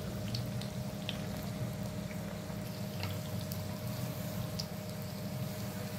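Folded maida puris deep-frying in hot oil: a steady bubbling sizzle with scattered small pops.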